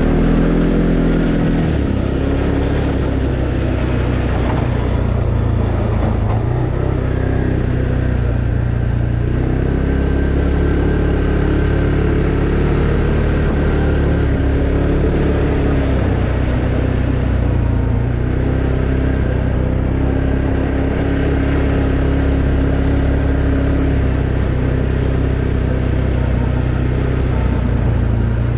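2020 Arctic Cat Alterra 700 ATV's single-cylinder engine running steadily under way, its pitch stepping up and down with the throttle.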